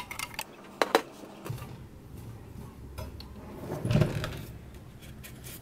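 Plastic dough tubs and a dial thermometer being set down and shifted in a proofing cabinet: a few sharp clicks and knocks near the start and a duller knock about four seconds in, over a low steady hum that starts about a second and a half in.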